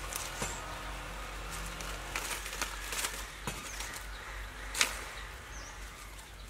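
Leaves rustling and stems snapping as leafy vine shoots are picked by hand, a string of short crackles with one sharper snap about five seconds in.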